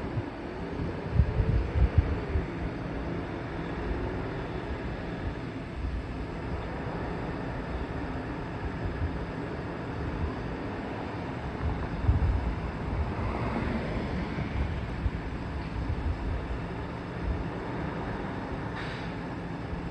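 Garbage truck running as it picks up carts, with a wavering whine in the first few seconds and heavy thumps about a second in and again about twelve seconds in.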